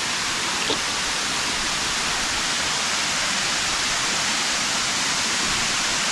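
Steady rushing of a tall waterfall, a dense even hiss.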